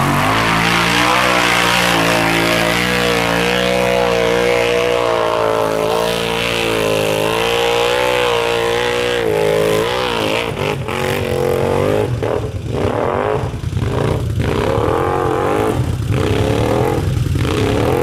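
Can-Am Renegade 800 ATV's V-twin engine, fitted with a Muzzy exhaust, held at high revs as the quad churns through deep mud. From about ten seconds in the throttle goes on and off, the revs rising and falling.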